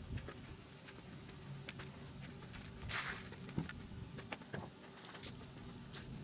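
Hand car wash in progress: scattered light taps and patters of a person moving around the wet car, with one brief louder swish about three seconds in.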